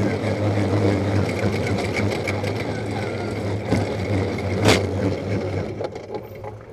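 Arctic Cat Wildcat side-by-side's V-twin engine running steadily as it crawls over rocks, with rattling from the machine and a sharp knock about four and a half seconds in. The engine eases off near the end.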